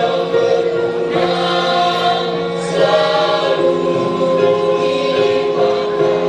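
Music: a song sung by a group of voices over a steady accompaniment.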